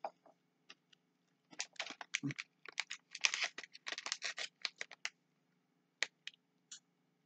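Plastic Skittles candy bag crinkling for a few seconds as a hand picks it up and digs inside for a candy, with a few lone clicks near the start and end.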